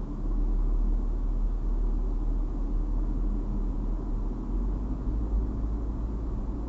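Steady road and engine rumble inside a moving car, recorded by the dash cam's built-in microphone.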